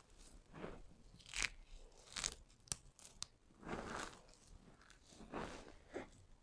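Dry, brittle soap pieces crunching as hands squeeze and crumble a heap of crushed soap cubes and shavings: a series of irregular crunches, with a couple of sharp snaps in the middle.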